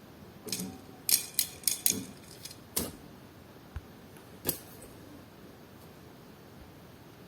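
Toy-car packaging being handled and opened: a quick run of sharp plastic crackles and clicks over the first three seconds, and one more about four and a half seconds in.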